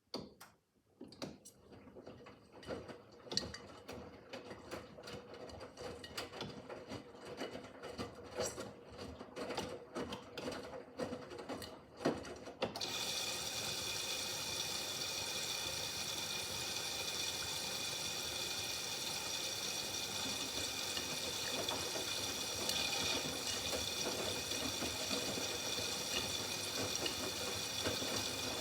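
Miele W5801 WPS front-loading washing machine: irregular clicking and knocking for about twelve seconds, then water suddenly starts rushing in steadily as the machine fills for its next stage.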